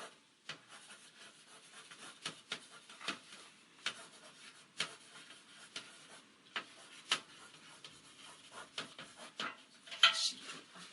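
Scattered small clicks, taps and rubbing of things being handled, irregular and fairly quiet, with a louder rustle about ten seconds in.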